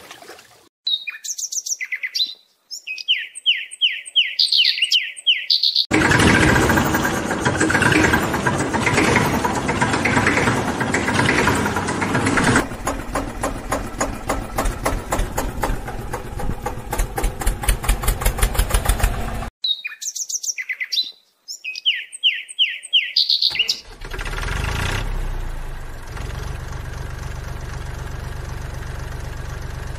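Dubbed sound effects: a quick run of high bird chirps, then an engine starting and running with a regular knock. The same chirp run comes again, and then an engine idles steadily.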